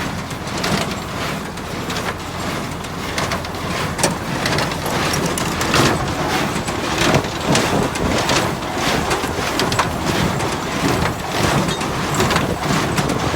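David Brown 990 tractor's diesel engine running under PTO load while a New Holland 268 square baler works hay. Repeated irregular clattering and knocking from the baler's moving parts sounds over the steady engine note.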